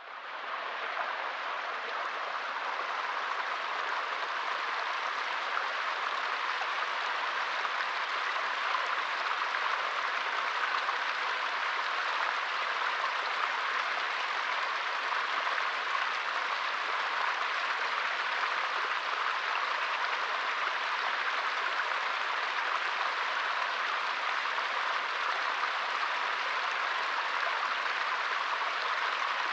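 Small stream flowing, a steady splashing babble of water that fades in over the first second or so.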